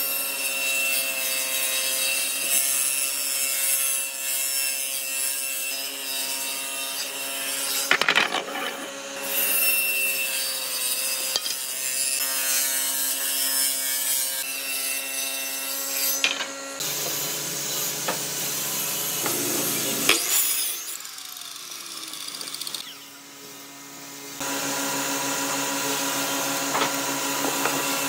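Table saw on a combination woodworking machine ripping pine boards lengthwise: a steady motor and blade tone under the rushing noise of the cut, with a few short breaks between passes.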